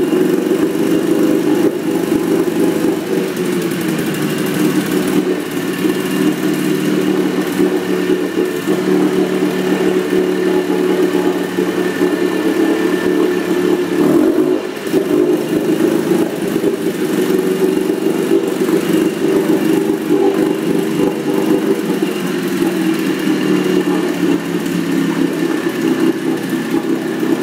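Yamaha 20 hp short-shaft outboard motor running steadily on its first run after new ignition coils were fitted, running smoothly. About halfway through the revs dip briefly and recover.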